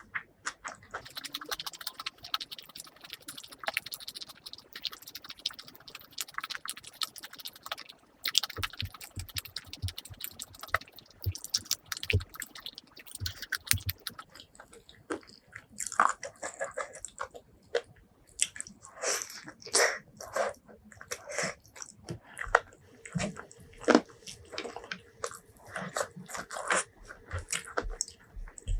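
Close-miked eating: chewing and biting with wet, squishy mouth smacks and some crunch. It is a dense fine crackle in the first half, then separate, louder chews in the second half.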